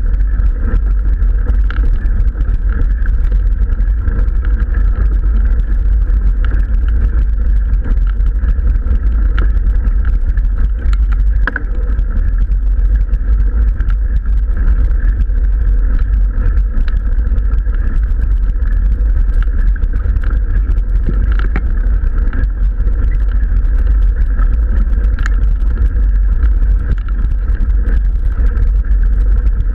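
Mountain bike rolling uphill on a gravel road, heard through a bike-mounted camera: a steady, loud low rumble of tyres and vibration, with a few faint clicks.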